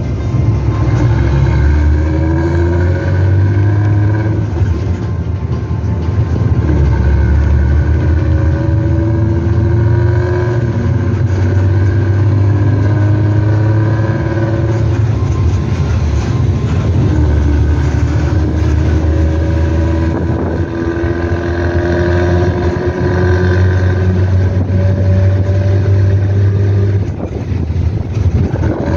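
Nissan Diesel CB87L bus's diesel engine and 'ngorok' (snoring) exhaust, heard from the rear seat inside the cabin under load. It is a deep, loud rumble whose pitch climbs for a few seconds and then drops back, again and again.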